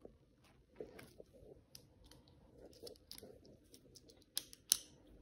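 A pen scratching and tapping in short strokes on a notebook page, with two sharper clicks about four and a half seconds in.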